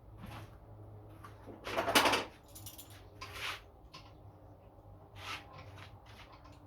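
Irregular scrapes and clinks of metal hand tools being worked, the loudest about two seconds in.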